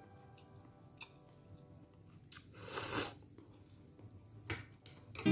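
Instant noodles being eaten: soft chewing with a slurp of noodles about halfway through, and a few faint clicks.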